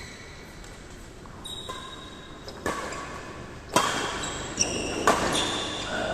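Badminton rally on an indoor court: sharp racket hits on the shuttlecock about once a second, echoing in the hall, with brief high squeaks in between. The hits get louder from about halfway through.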